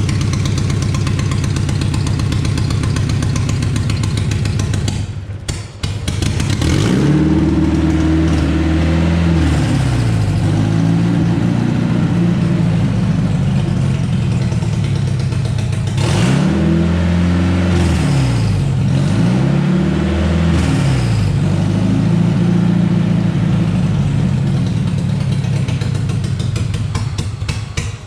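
Honda K20 inline-four engine running on its first start-up after the swap, on stale fuel: steady running for about five seconds, then blipped up and down in two spells of several revs each, settling back between them. It is running roughly, not firing well on all cylinders because of the bad gas.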